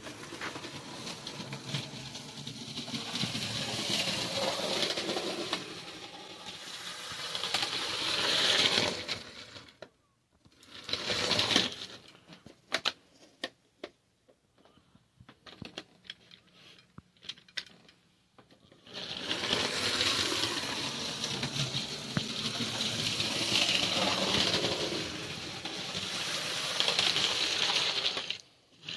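Lego train running on 9V metal-rail track: the small electric motor whirs and the wheels rattle on the rails. It stops for several seconds about ten seconds in, leaving a few scattered clicks, then runs again.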